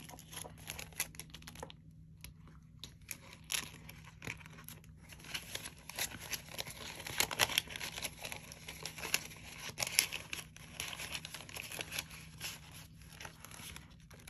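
Paper banknotes rustling as they are handled in a clear plastic budget-binder pouch, the plastic crinkling. The rustles and crackles are irregular, with a short lull about two seconds in.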